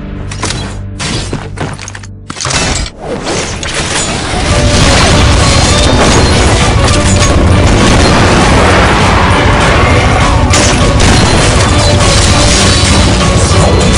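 Music with loud action sound effects: booming shots and impacts from a scythe-rifle fight against monsters. Choppy with brief gaps for the first few seconds, then a dense, continuous wall of sound from about four and a half seconds in.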